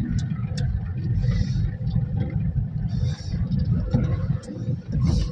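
Low road and engine rumble of a moving car heard from inside the cabin, with a few light clicks and two brief hisses.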